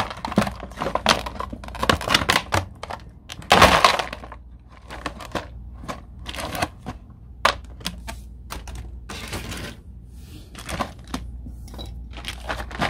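Stiff clear plastic blister packaging crackling and snapping as a tightly sealed plastic cover is pried and pulled off by hand, with a loud burst of crackling about three and a half seconds in.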